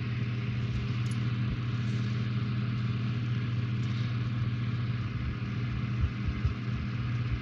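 Steady low mechanical hum with an even hiss above it, and a few soft knocks around six seconds in.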